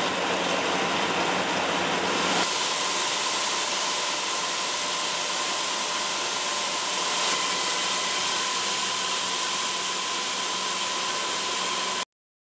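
Summit lathe running steadily with a constant whine over a hiss. About two seconds in the sound turns thinner and hissier, and it cuts off suddenly near the end.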